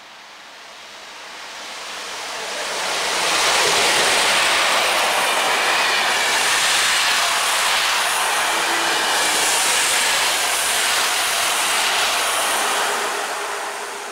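An EP07 electric locomotive hauling PKP Intercity coaches passes at speed. A rush of wheel-on-rail noise builds over the first few seconds as the train approaches. It holds loud and steady with a regular clatter as the coaches' wheels go by, then fades near the end as the last coach passes.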